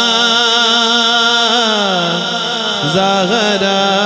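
A man singing an Urdu devotional kalam into a microphone, drawing out long vowels in a melismatic line that glides up and down in pitch.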